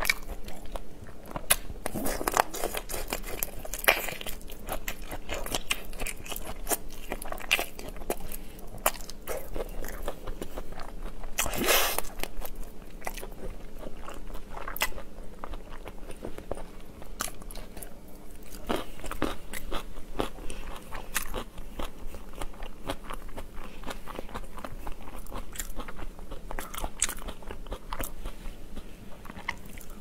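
Close-miked eating of shell-on prawns: biting, crunching and chewing, with many small crackling clicks and a few louder crunches.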